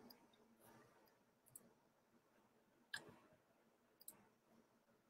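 A few faint, isolated clicks from a computer keyboard and mouse, the loudest about three seconds in, over near silence.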